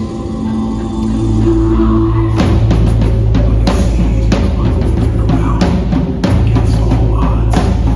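Music: held notes over a deep bass, then a drum kit comes in about two and a half seconds in and plays a steady beat.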